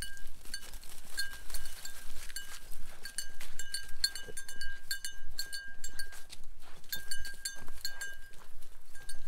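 A small bell on a goat's collar jingling in quick, irregular strikes as the goat trots along, each strike ringing on the same bright tone.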